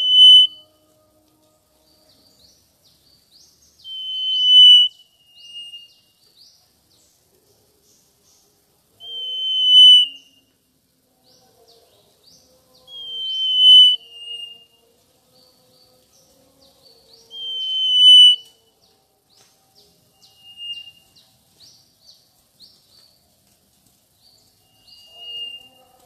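Mangrove whistler singing: six loud, clear whistled phrases about every four to five seconds. Each phrase swells in loudness, and some are followed by a shorter, lower note.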